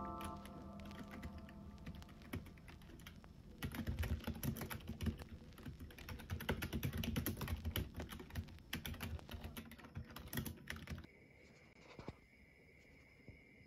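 Fast typing on a black low-profile computer keyboard: a quick, irregular patter of key clacks, softer at first and louder from about four seconds in, stopping about eleven seconds in. After it only a faint steady high tone remains.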